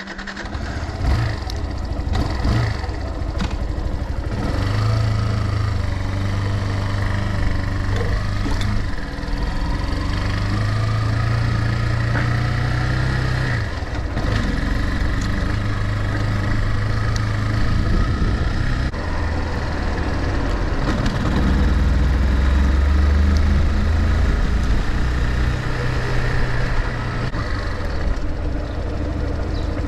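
Motorcycle engine running while under way, its low note holding steady for a few seconds at a time and then shifting up or down.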